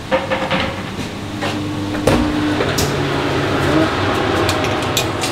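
Commercial combi oven opened and a metal baking tray slid onto its rack, with a sharp knock about two seconds in and scattered light clicks, over the steady hum of the running oven fan and kitchen ventilation.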